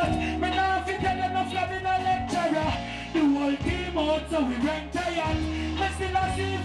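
Live reggae band playing, with a male vocalist singing into a microphone over bass and drums.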